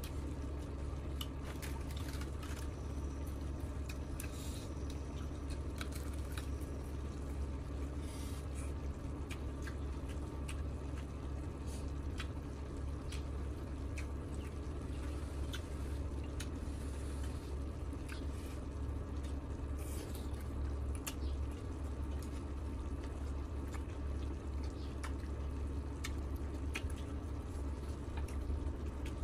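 Mukbang eating sounds: wet chewing and squishing of chewy octopus and beef, with many small clicks of chopsticks and a spoon against the griddle pan, over a steady low hum.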